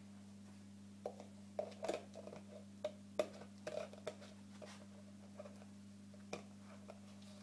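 A plastic fish food tub being handled and its snap-on lid worked at without thumbs: a run of small clicks, knocks and scrapes of plastic, busiest in the first half, then a few single clicks, over a steady low hum.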